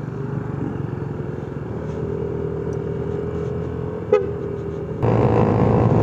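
Motorcycles and scooters going past on a road, a steady engine hum with a short sharp sound about four seconds in. About five seconds in the sound jumps to the louder engine and road noise of riding on a motorcycle.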